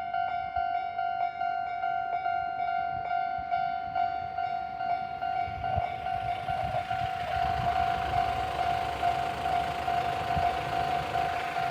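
Japanese railway level-crossing alarm ringing a steady electronic bell tone in an even repeated strike, a little under two a second. From about six seconds in, the rumble and rail noise of a train rises beneath it as the train reaches the crossing.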